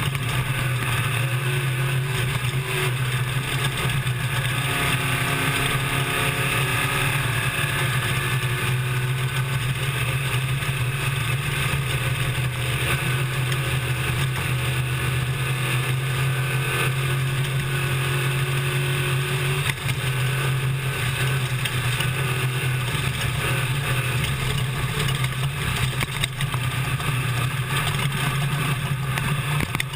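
Desert race truck heard from inside the cab, running hard at speed over rough ground. The engine's pitch rises and falls with the throttle above a steady low drone, mixed with a constant noise of wind, tyres and rattling.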